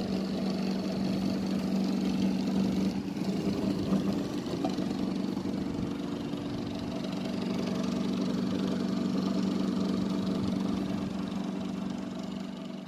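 Homemade dual-stator, dual-rotor axial flux BLDC motor running steadily under its electronic controller: a steady hum with a strong tone near 200 Hz and overtones above it. It grows fainter near the end.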